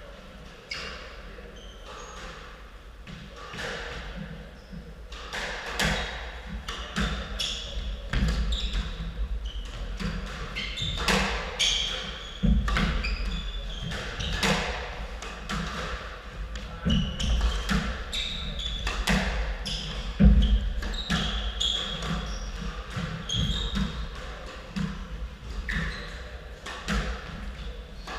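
A squash rally: the ball cracks off the rackets and smacks against the court walls again and again, with short shoe squeaks on the wooden floor. Two heavy thuds, about twelve and twenty seconds in, are the loudest sounds.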